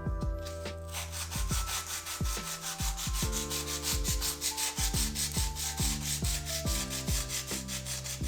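Hand sanding in quick, even back-and-forth strokes, starting about a second in, over background music with a steady beat.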